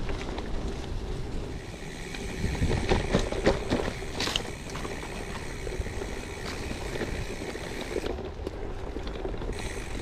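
Gravel bike riding along a forest dirt track: steady tyre noise with frequent knocks and rattles from the bike over bumps, busiest a few seconds in.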